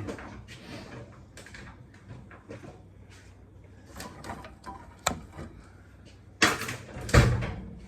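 Hand work on a military truck's steel windshield frame: scattered small clicks and rustles of tools and parts being handled, then two louder clunks less than a second apart near the end.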